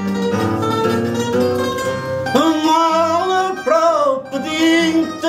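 Fado accompaniment on Portuguese guitar and viola (classical guitar), plucked notes between sung lines. About two seconds in, a loud, wavering melody line with vibrato comes in over the guitars.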